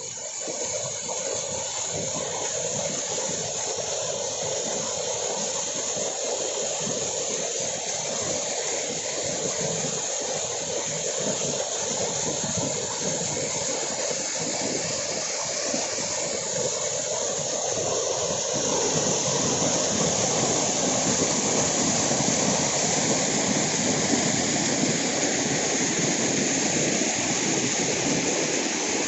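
Waterfall rushing, a steady roar of falling water that grows a little louder and fuller about two-thirds of the way through.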